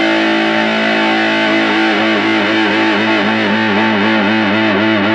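Heavily distorted electric guitar, a Fender American Special Stratocaster with hot-rail style pickups through a Mooer Solo distortion pedal at full gain, holding a long sustained note that begins to waver in pitch with vibrato about two seconds in.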